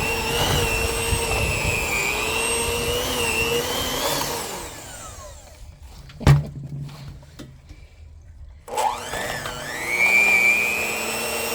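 Electric mixer running through a thick homemade bird-suet mix, its motor whine wavering under load. It winds down about halfway through, a single sharp knock follows, then it starts up again with rising pitch and runs on.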